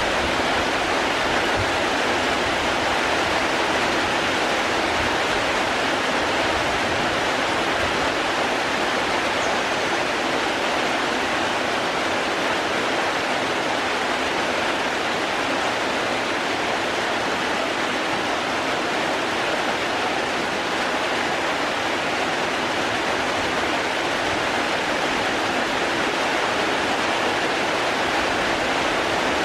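Steady, even rush of falling water, with no breaks or single drops standing out.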